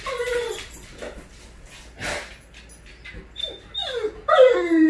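Great Dane whining with excitement at the front door as its owner arrives home. A short falling whine at the start, a brief breathy noise about two seconds in, then near the end a long drawn-out whine, the loudest part, that dips in pitch and rises again.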